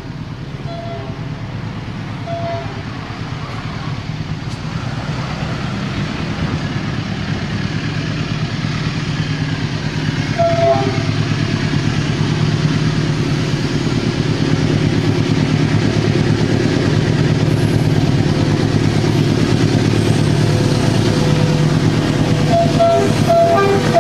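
Diesel locomotive hauling a train of tank cars, approaching: a steady deep engine rumble growing louder as it nears. About halfway, and in a quick string near the end, there are short high tones.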